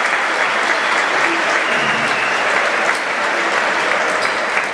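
Arena crowd applauding, a steady, dense clapping.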